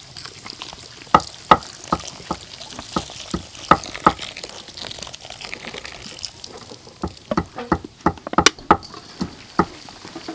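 Carbonated soda water poured onto raw shrimp in a steel bowl, fizzing and splashing. Hands stir and rub the shrimp in the foam, with frequent sharp clicks and splashes against the bowl, busiest in the last few seconds.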